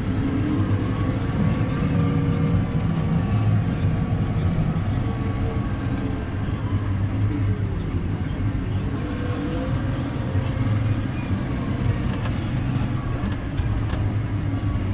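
Tractor engine running steadily under load while ploughing, heard from inside the cab, its pitch wavering slightly up and down.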